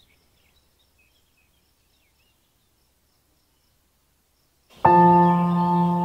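Faint birdsong fading away into near silence, then about three-quarters of the way through, ambient background music starts abruptly with a loud held chord of several steady tones.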